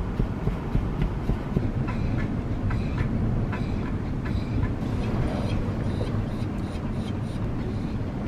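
Land Rover Discovery 2 with its Td5 diesel, on the move: a heavy, steady rumble of engine and road noise with scattered sharp ticks.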